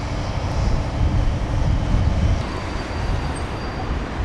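DB class 601 TEE diesel-hydraulic multiple unit running past, its diesel power car giving a steady, loud rumbling noise.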